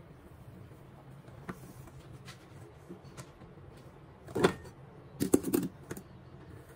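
Silicone spatula and stainless steel mixing bowls knocking and scraping as whipped egg whites are scooped into cake batter: a faint click about one and a half seconds in, then a louder cluster of knocks and clatter between about four and a half and six seconds in.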